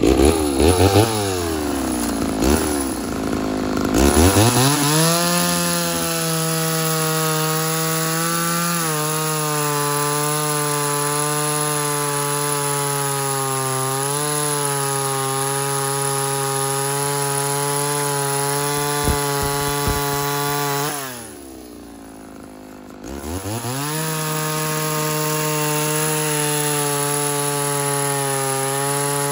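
Homelite Super XL Auto two-stroke chainsaw with a bow bar: it is revved up and down a few times, then held at full throttle while the bar cuts down through a log. About 21 seconds in it drops to idle for a couple of seconds, then revs back up and keeps cutting.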